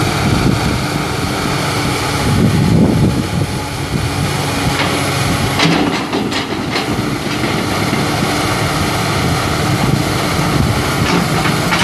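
Komatsu PC300LC-6 excavator's six-cylinder turbo diesel engine running steadily while the hydraulics draw the arm in and lower the bucket. A few sharp clicks or knocks come about halfway through.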